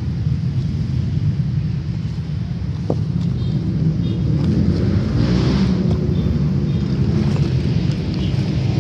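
Hands digging and scraping through wet mud and soil, with a scratchy rustle about halfway through, over a loud, steady low rumble.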